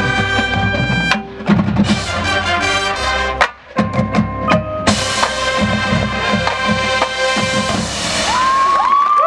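Marching band playing brass chords over drumline and pit percussion, breaking off briefly about three and a half seconds in and then going on with a loud drum-driven passage and cymbals.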